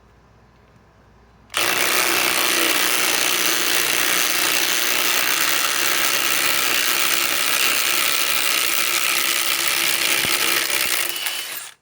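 Two cordless impact wrenches, a Flex FX1431 and a DeWalt Atomic DCF921, hammering together in reverse as they back out large fasteners. They start about a second and a half in, run loud and steady, and trail off just before the end.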